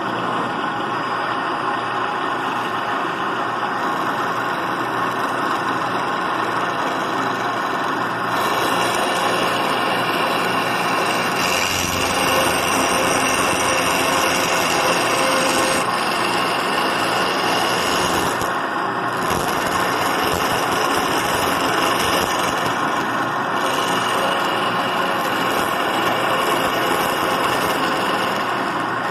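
A motor running steadily without a break, loud and even throughout.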